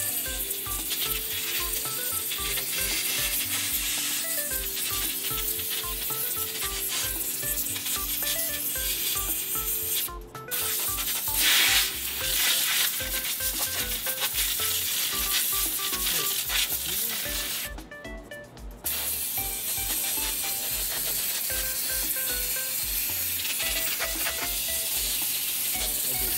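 Compressed-air blow gun hissing steadily as it blows loose sand out of a 3D-printed sand core, cutting out briefly about ten seconds in and again around eighteen seconds, and loudest just after the first break. Background music with a steady bass beat plays underneath.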